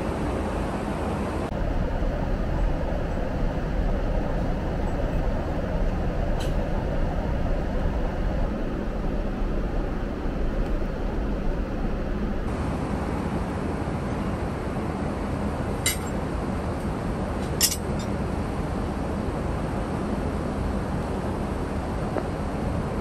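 Steady airliner cabin noise of a Boeing 777-300ER in flight, a constant rumble and hiss. A few light clinks of cutlery and tableware sound over it, once about six seconds in and twice in quick succession near the end.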